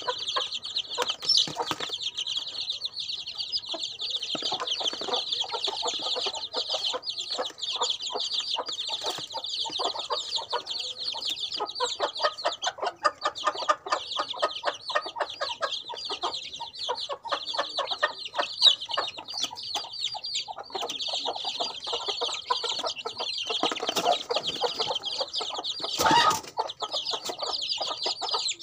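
A flock of young chicks peeping constantly in rapid, high-pitched calls, with lower clucking notes mixed in. A brief loud knock comes near the end.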